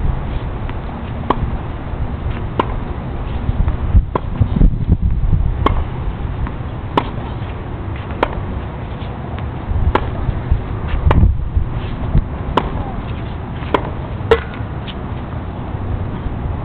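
Tennis balls being struck by rackets and bouncing on the court during a rally: a sharp pop about every second to second and a half. Underneath is a steady low rumble of wind on the microphone.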